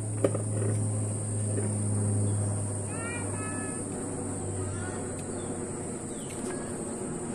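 Outdoor ambience: a steady high insect drone, a low hum that fades out after a few seconds, and a few short bird chirps about three seconds in.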